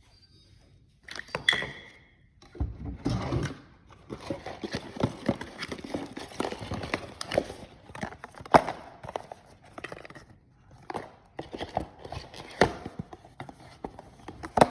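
Handling noise around a refrigerator water filter: irregular knocks, clicks and rustling, with a few sharper knocks.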